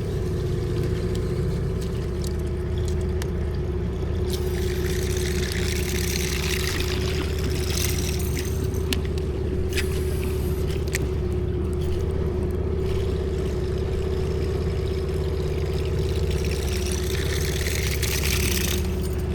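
A small engine running at a steady speed throughout, with two stretches of hiss, about five and seventeen seconds in, and a few sharp clicks around ten seconds in.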